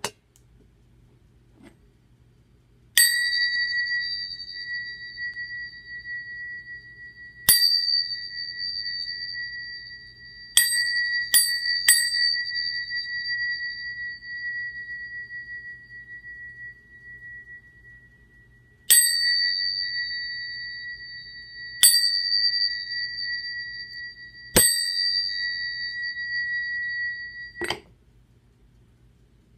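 Two brass candlesticks struck together, each strike setting off a long, clear, high ring with a higher overtone that slowly fades. Eight strikes in all, three in quick succession near the middle; a dull knock near the end stops the ringing.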